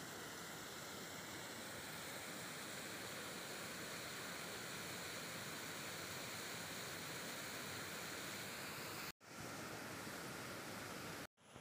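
Steady rush of water pouring over a low weir's spillway, a constant even hiss with no rhythm, cutting out briefly twice near the end.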